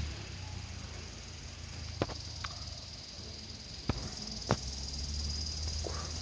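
Insects trilling steadily in the background, a high thin continuous sound, with a few sharp clicks around the middle.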